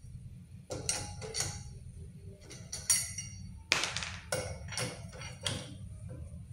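Lug wrench working the front wheel's lug nuts: a string of sharp metallic clinks and clanks, irregularly spaced, each with a short ring.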